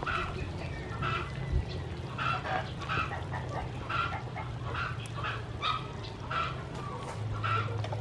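Domestic waterfowl calling over and over, short calls about twice a second, over a steady low hum.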